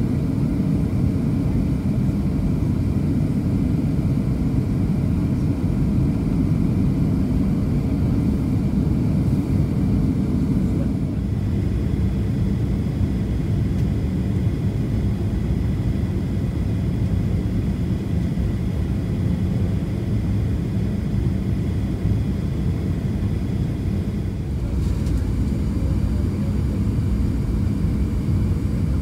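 Steady low rumble of engine and airflow noise inside the cabin of a Boeing 737-700 descending on final approach, heard from a window seat beside one of its CFM56-7B turbofan engines.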